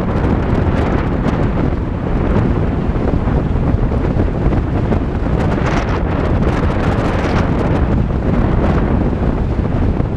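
Volkswagen Tiguan driving along a dirt road: a steady low rumble of tyres and vehicle, with wind buffeting the microphone. A few scattered ticks and rattles come a little past the middle.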